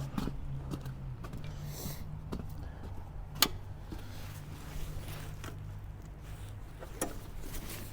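Frontier OS23 sawmill's small engine idling steadily, with a sharp click about three and a half seconds in and a lighter one near the end.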